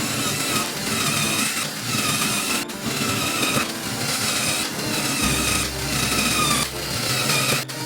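Repeated back-and-forth scraping strokes on wood, about one a second, with a short gap between strokes and a low hum under them near the end.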